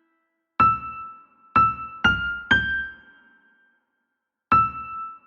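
Soft keyboard music: single high piano-like notes, each struck and left to fade. A phrase of four notes steps slightly upward, pauses, then begins again near the end.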